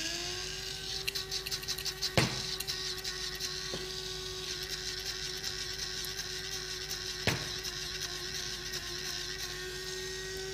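Small electric spice grinder running steadily, its motor giving one constant whine as it grinds fried onions. Two sharp knocks, about two seconds in and about seven seconds in.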